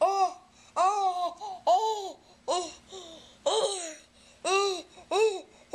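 Eight-month-old baby vocalizing into a clear plastic cup held over her mouth: a quick run of about eight short calls, each rising and falling in pitch, like babbling laughter.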